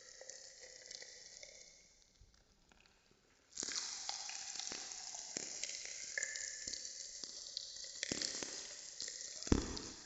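Popping candy crackling and fizzing with many sharp little pops, the recording pitch-shifted with chorus and reverb added. The crackle dies away about two seconds in, starts again suddenly about three and a half seconds in, and has one louder pop near the end.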